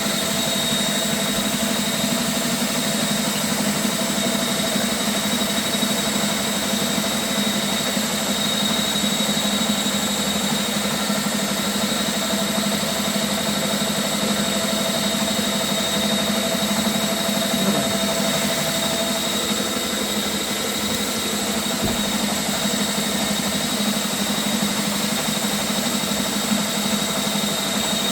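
Flex-shaft drain cleaning machine running steadily with a constant machine hum and whine, spinning its cable in a partly blocked sewer pipe.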